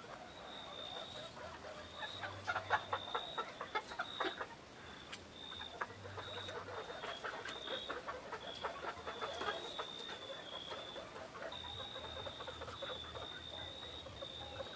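Pearl-grey Italian chickens settling to roost, clucking and murmuring in short soft calls, busiest about two to four seconds in and again around eight to ten seconds.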